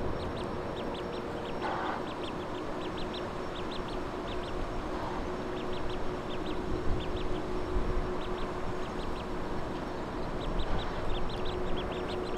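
Ducklings peeping: rapid, high-pitched short peeps, several a second, continuing throughout.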